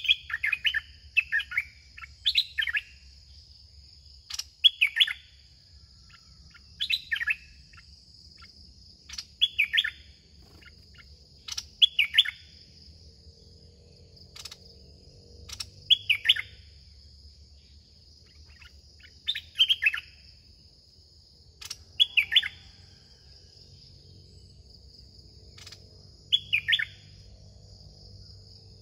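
Songbird calling in short, falling phrases repeated every two to four seconds, over a steady high insect buzz.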